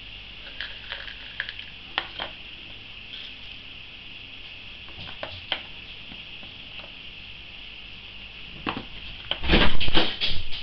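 Small plastic tubs being handled: light clicks and taps of plastic against plastic, with a louder clatter of plastic handling about nine seconds in.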